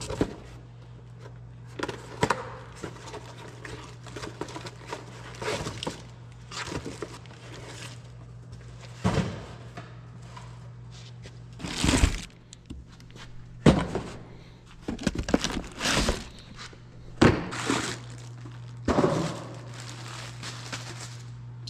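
Cardboard shipping boxes being opened and handled by hand: tape cut and torn, packaging rustling, and boxes and parts set down with dull thunks, several of them sharp and loud. A steady low hum runs underneath.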